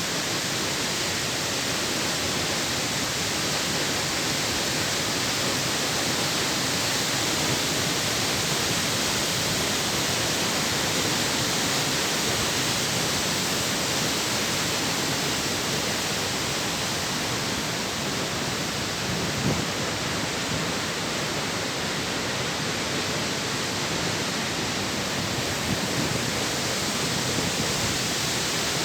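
Water from Croton Dam rushing down its spillway: a steady, even roar of falling water.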